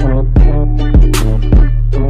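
Background music with a heavy bass beat, a deep drum hit about every three-quarters of a second.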